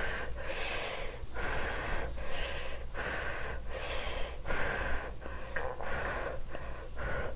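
Close-miked handling of tomato-sauced spaghetti with a fork and spoon as it is lifted and twirled: a string of short, airy, hissing wet noises, several a few seconds apart.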